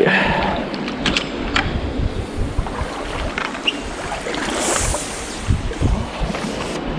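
Rushing river water and wind buffeting the microphone, with a few scattered knocks.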